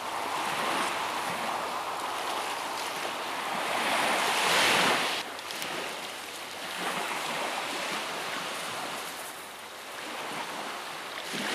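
Small sea waves washing onto a beach. The noise swells to its loudest about four seconds in and drops away suddenly just after five seconds, then comes in more gently again.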